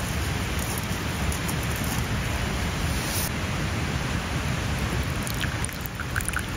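Steady hiss of rain. Near the end, tea starts trickling from a metal kettle into a wooden cup.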